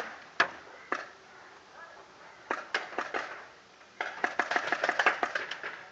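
Paintball markers firing: a few single shots, then a handful more, then a fast string of shots lasting about a second and a half near the end.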